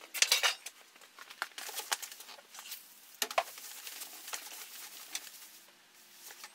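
A cloth rag rubbed back and forth over a sheet-metal workbench top: an irregular run of short scrubbing swishes with light knocks, easing off near the end.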